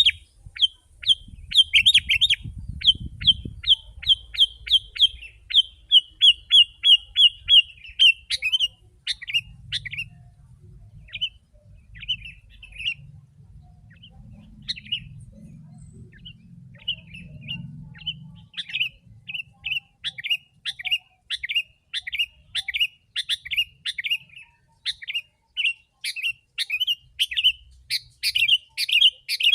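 Sooty-headed bulbul (kutilang) calling busily in a series of short, sharp chirps that sweep downward, about two a second. The chirps thin out in the middle and come fast again for the last third.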